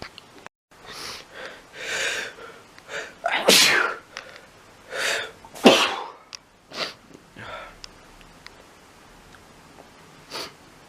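A man sneezing repeatedly, a fit of sneezes with sharp in-breaths between them. The two loudest sneezes come about halfway through, and one short burst comes near the end.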